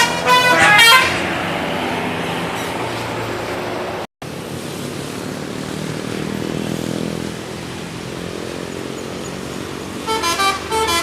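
Indonesian bus telolet horns, multi-note musical horns, play a quick run of stepped notes in the first second. A steady bus engine rumble follows for several seconds, broken by a brief dropout about four seconds in. The horn tune starts again about a second before the end.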